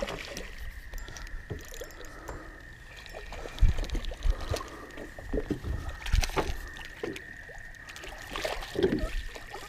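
Water splashing and sloshing as a hooked crappie thrashes at the surface and is scooped into a landing net, with a thump about three and a half seconds in.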